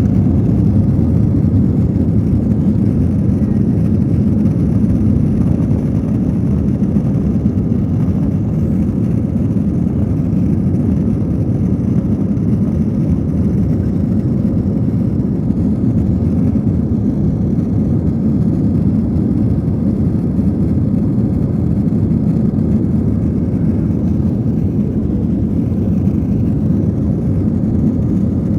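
Steady low rumble of an aeroplane taking off, its engines and roll holding an even level without a clear rise in pitch.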